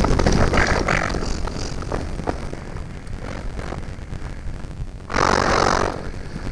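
Mountain bike ride on a dirt trail picked up by a GoPro Hero5 Black's microphone: a steady rumble of riding noise with scattered clicks and rattles, and a loud rustling hiss about five seconds in that lasts under a second.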